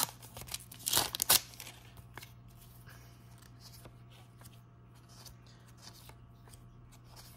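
Panini sticker packet's foil wrapper crinkling as it is torn open, loudest at the start and about a second in. After that come faint rustles and ticks of the stickers being flipped through by hand, over a low steady hum.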